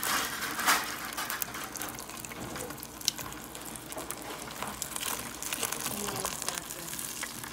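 Battered chicken pieces deep-frying in hot oil in an electric deep fryer: a steady crackling sizzle.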